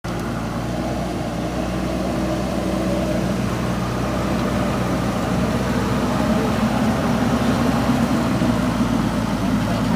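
JCB backhoe loader's diesel engine running steadily, gradually getting a little louder.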